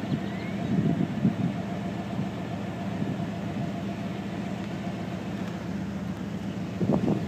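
Steady low hum of an idling engine, with a faint murmur of voices about a second in and near the end.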